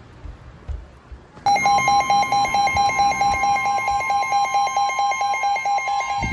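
NOAA Weather Radio alert signal: about a second and a half in, the steady 1050 Hz weather alert tone starts suddenly and loudly, with a rapid pulsed beeping over it, about eight beeps a second.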